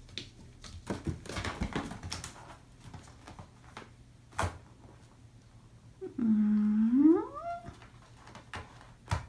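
A cat's long meow about six seconds in, held on one low note and then rising in pitch. Before it, scuffling and scratching from a kitten pawing a toy mouse against a cardboard scratcher, and a single knock.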